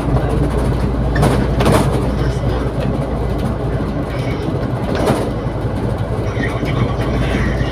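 Double-decker bus driving, heard from inside on the upper deck: a steady low engine hum under road and body noise, with a few sharp rattling knocks between one and two seconds in and again about five seconds in.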